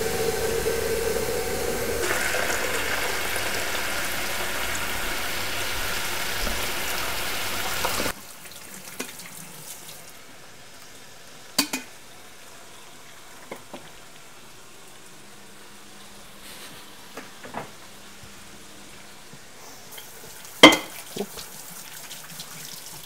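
Bacon strips sizzling in a frying pan, a steady hiss that cuts off abruptly about eight seconds in. After that the room is much quieter, with a few scattered clicks and one sharp knock near the end.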